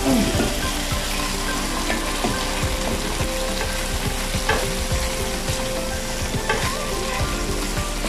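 Bitter melon and egg sizzling as they fry in a wok, stirred with a wooden spatula that scrapes and knocks against the pan a few times.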